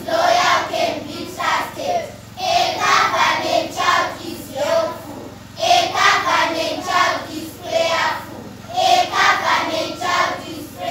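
A large group of children's voices chanting in unison, in phrases of about three seconds with short breaks between them.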